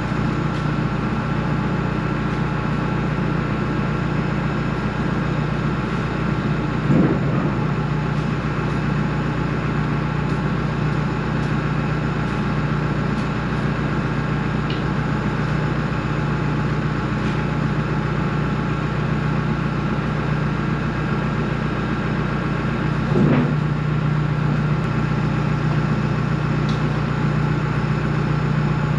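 Tractor engine running steadily. Two brief knocks come through, one about seven seconds in and another about two-thirds of the way through.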